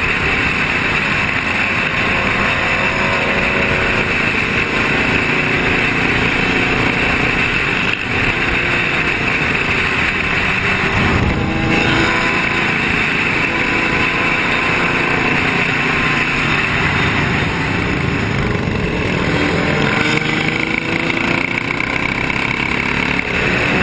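Motorcycle engines running at highway speed in a big group ride, heard from a rider's camera over a steady rush of wind and road noise, with engine notes that rise and fall in pitch as bikes speed up and ease off.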